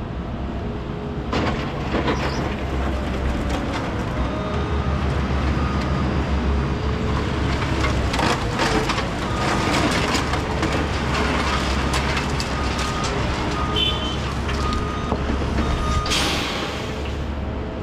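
Heavy diesel demolition machinery running steadily, with clanks and knocks of broken concrete being handled, a reversing alarm beeping at times, and a burst of air hiss near the end.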